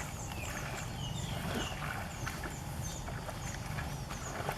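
Outdoor ambience: a small bird chirping repeatedly in short high notes, about three a second, with a few falling whistled calls about a second in, over a steady low rumble and occasional small clicks.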